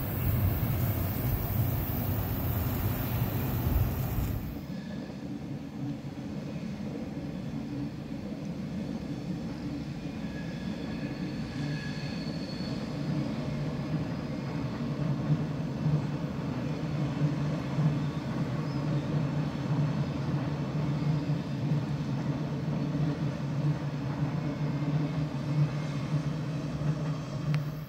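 A loud rushing noise for about four seconds, then an abrupt change to an electric train running across a stone arch viaduct, heard from a distance as a steady rumble with a low hum that slowly grows louder.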